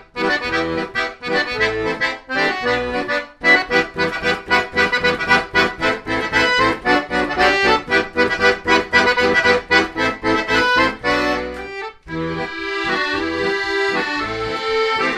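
Background music: a lively instrumental tune played as a quick run of notes, with brief breaks about three and a half seconds and twelve seconds in.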